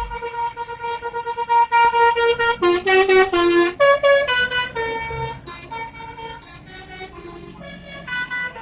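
Bus's basuri (telolet) musical air horn playing a tune: a fast pulsing note for the first couple of seconds, then a quick run of changing notes. It goes on more softly after about five seconds.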